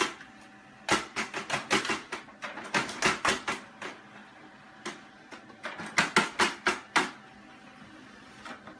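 Quick runs of light clicks and taps as a cat bats at the paper and plastic output tray of a printer, one run over about two seconds and another near the end.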